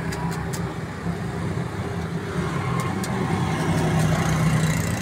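Street traffic with a motor vehicle engine running close by, a steady low hum that grows somewhat louder about four seconds in. A few faint light clicks sit over it.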